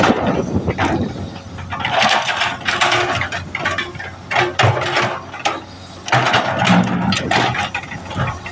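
Komatsu PC200 hydraulic excavator running, with irregular noisy surges and knocks from the machine rather than a steady hum.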